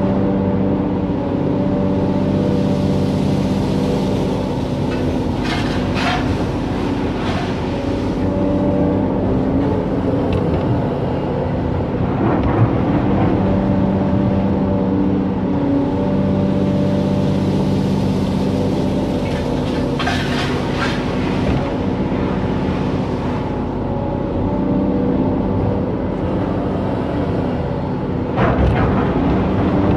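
Hydraulic excavator's diesel engine running steadily, its note changing every few seconds as the machine works through loading cycles, with a few short knocks.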